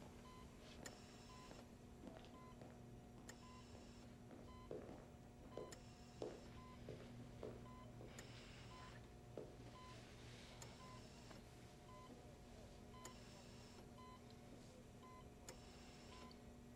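Hospital patient monitor beeping softly and regularly, a short high beep about every 0.8 s, over a low steady hum and a faint ventilator hiss every two to three seconds.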